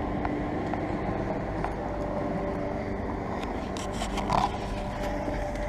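Steady outdoor mechanical hum with a few faint tones, broken by a handful of light clicks and a brief louder scuff a little past four seconds.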